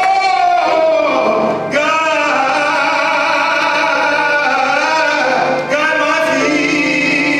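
A man singing solo into a handheld microphone, gliding between notes in the first phrase and then holding long notes.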